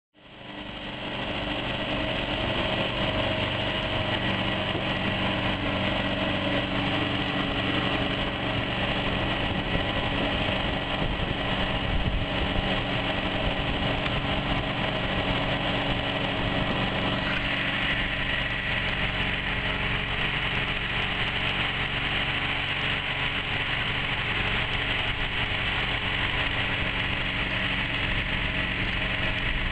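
Home-made outboard mud motor running steadily, a constant engine drone that cuts in at the start and rises to full level within about a second.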